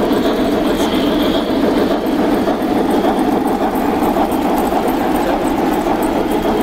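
Model trains running past on the layout track: a steady rumble of wheels and motors.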